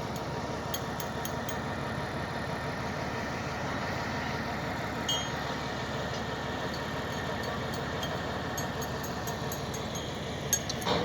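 An engine idling steadily, with a few sharp clicks near the end.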